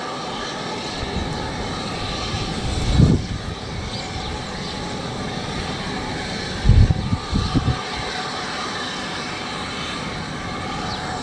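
Steam tank locomotive at the head of a passenger train hissing steam steadily as it stands or moves off slowly. A dull low thump comes about three seconds in and a short cluster of thumps around seven seconds.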